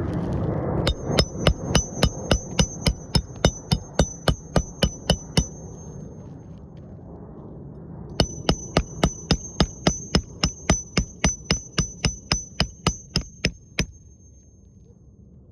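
Hammer blows, quick and even at about four a second, in two runs of about five seconds with a short pause between, during a roof shingle repair.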